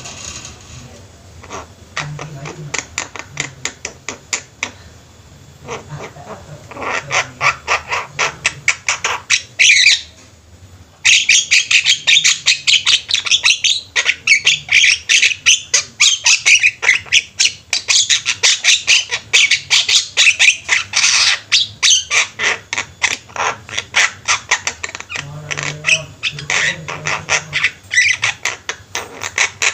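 A group of Javan mynas (jalak kebo) calling together in rapid, harsh chattering: sparse at first, a brief pause about ten seconds in, then loud and nearly continuous.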